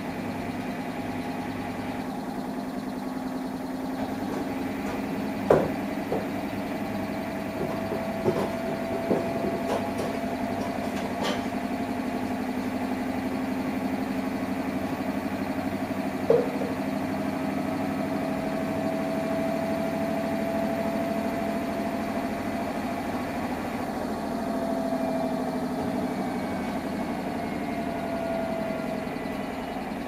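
Samsung Eco Bubble washing machine running through its wash: a steady motor hum with a whine that slowly rises, breaks off about halfway, then rises again and falls away near the end. A few light knocks from the load tumbling in the drum come in the first half.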